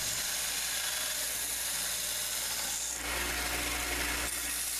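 Small bench belt sander running while a piece of brass held in locking pliers is ground against its belt, shaping a knife finger guard. A deeper hum comes in for about a second, starting about three seconds in.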